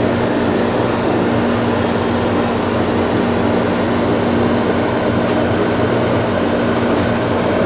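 Steady drone of a ship's machinery: an even rushing noise with a constant low hum running under it.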